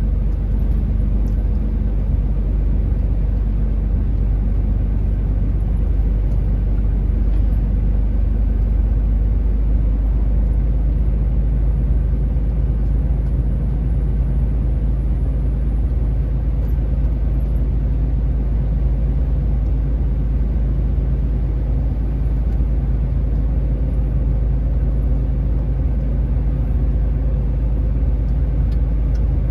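A heavy truck's diesel engine runs steadily under a load of about 27 tonnes of brick, a continuous low drone. About ten seconds in its note shifts slightly as the engine speed changes.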